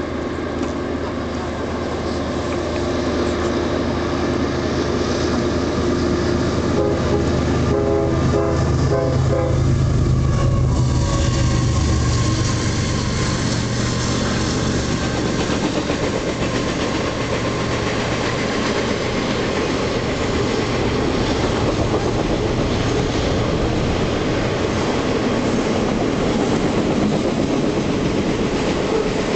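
Canadian Pacific freight train passing: two GE diesel locomotives approach and go by with a steady engine drone that peaks about ten to twelve seconds in, the horn sounding in broken blasts shortly before. A long string of container cars then rolls past with steady wheel clatter.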